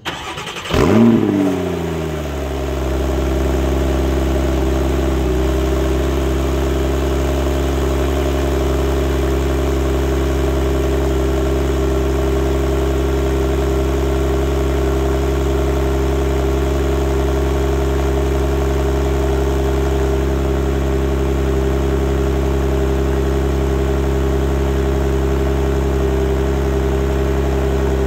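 Porsche 911 Targa GTS flat-six engine on a cold start. It cranks and catches, flares to a loud rev peak about a second in, then drops over the next couple of seconds into a steady cold idle at the exhaust.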